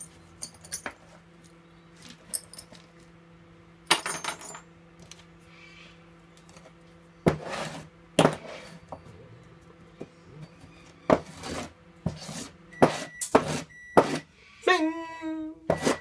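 Loose steel drill bits clinking together and knocks on a wooden workbench as it is cleared, over a faint steady hum. Near the end the hum stops, a few short high beeps sound, and there is a brief vocal sound.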